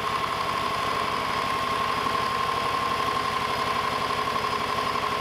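Cordless drill spinning a lawn mower's small engine over by its flywheel nut: a steady drill whine over the rapid, even pulsing of the engine turning. The engine is being cranked on diesel and does not start, which the owner puts down to having apparently flooded it.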